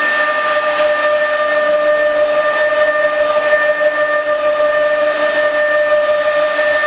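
CNC router running: a steady, high-pitched whine that holds one pitch throughout, over a steady hiss.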